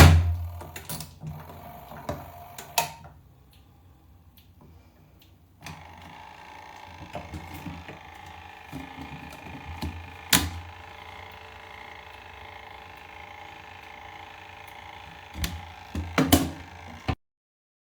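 Small electric motor of a portable twin tub washing machine running with a steady hum, with sharp clicks and knocks. It falls away for a couple of seconds about three seconds in, then runs again and cuts off suddenly near the end.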